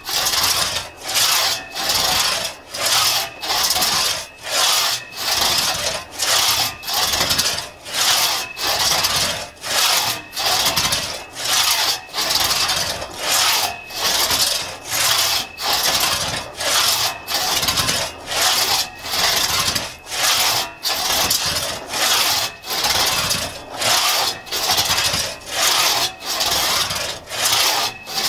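A 4.5-foot Tuttle-tooth one-man crosscut saw cutting through a log by hand, in steady back-and-forth strokes. Each push and pull makes a rasp, with a short break as the blade reverses, about three strokes every two seconds.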